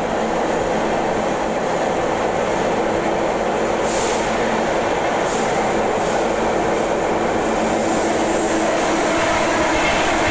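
Passenger train running at speed, heard at its barred carriage window: a steady, dense rumble of wheels on the rails, growing slightly louder in the last couple of seconds.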